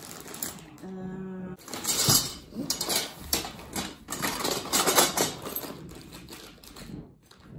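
Rustling and clattering of flat-pack furniture parts and packaging being handled, with irregular clicks and knocks. About a second in, a short steady hum.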